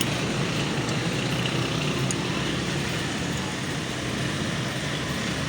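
Steady background rumble like passing road traffic, with no engine running in the picture of the work.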